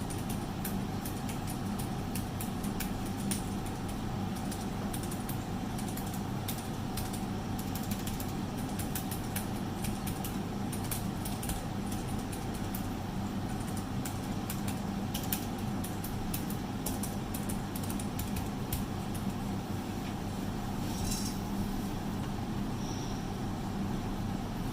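Typing on a Keychron K3 low-profile keyboard with brown optical switches: irregular light key clicks over a steady hum.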